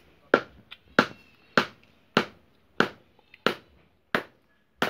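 Blade chopping into a coconut: eight sharp strikes at a steady pace of about one every two-thirds of a second.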